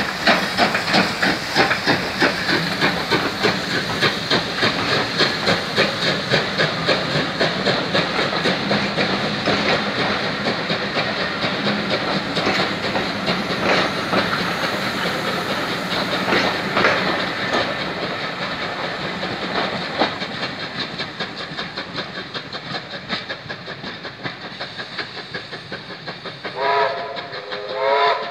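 USATC S160 2-8-0 steam locomotive pulling away with its train: a steady beat of exhaust chuffs over hissing steam, fading slowly as the coaches run past with wheel clicks. Near the end, two short whistle blasts.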